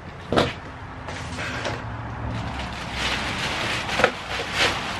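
A short cardboard knock about half a second in, then a large plastic bag rustling and crinkling as it is pulled down by hand, with two sharper crackles near the end.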